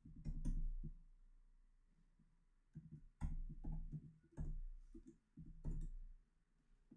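Computer keyboard keys being typed in short irregular runs: a few taps at first, a pause of about two seconds, then quicker bursts of typing through the rest.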